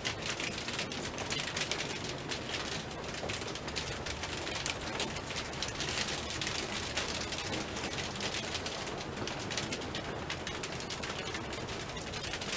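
Sleet pattering, a dense, steady crackle of many small ticks.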